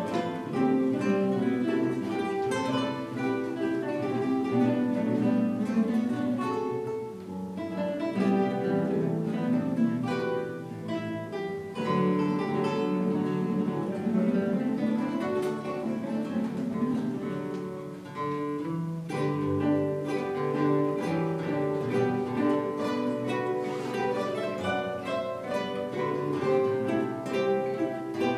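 A large ensemble of acoustic guitars playing a piece together, many plucked notes sounding at once.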